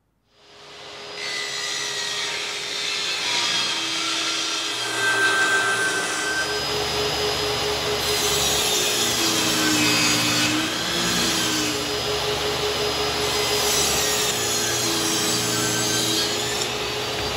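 Table saw ripping cedar fence boards: the motor and blade run steadily, and the pitch dips a few times as the wood is fed through the blade.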